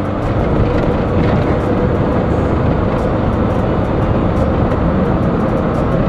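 Car crossing a bridge, heard inside the cabin: steady, loud tyre and road noise with a faint steady hum running through it.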